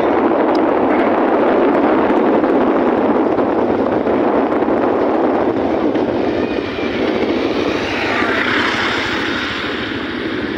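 Steady rushing noise of a motorcycle ride on a wet road: wind on the microphone mixed with engine and tyre noise, easing a little in the second half.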